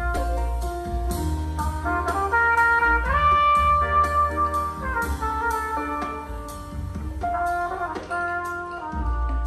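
Brass-led jazz with a deep bass line, played back through a pair of Wilson Audio Duette 2 stand-mount loudspeakers and heard in the room.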